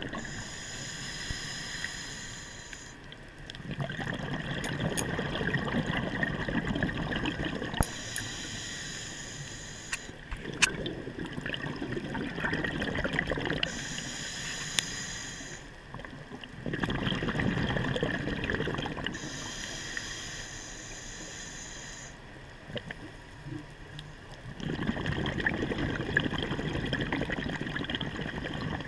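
Scuba diver breathing through a regulator: a hissing inhale, then a longer rush of exhaled bubbles, in about four slow breaths. A few faint clicks sound between them.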